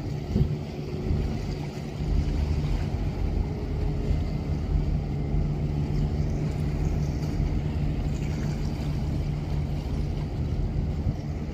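Large container ship under way, its engines making a low, steady droning hum.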